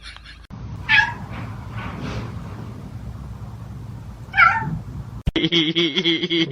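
A cat meowing twice, about three and a half seconds apart, each call loud and falling in pitch.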